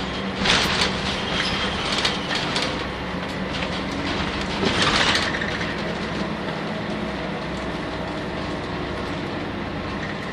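Nissan Diesel UA city bus with a PU6 natural-gas engine running on the road, heard from inside the cabin: a steady engine tone under road and body noise, with two brief louder noisy surges, about half a second in and around five seconds in.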